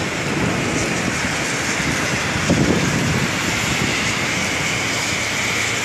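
Heavy rain falling steadily, mixed with cars swishing along a flooded, wet road. A brief louder low rumble comes about two and a half seconds in.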